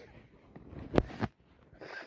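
A person with a heavy cold taking a noisy, gasping inhale that breaks into a single sharp sneeze about a second in, followed by a short breath near the end.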